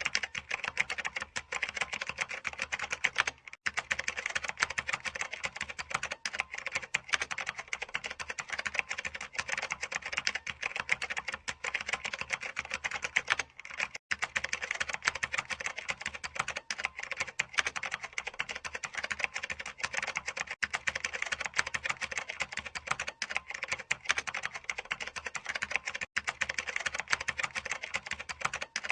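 Computer keyboard being typed on fast and continuously, the key clicks packed close together, with a couple of split-second breaks.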